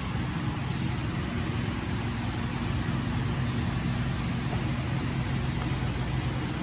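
Large-format CNC cutting machine running: a steady machine hum with an even hiss.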